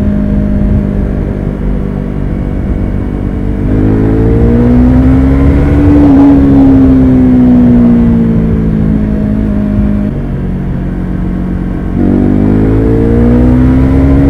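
Yamaha R3 321 cc parallel-twin engine through an unbaffled Akrapovic carbon-fibre slip-on exhaust, heard while riding. It runs at steady revs, then about four seconds in the throttle opens and the revs climb for a couple of seconds before slowly sagging; the throttle eases off about ten seconds in and opens again near the end with the revs climbing.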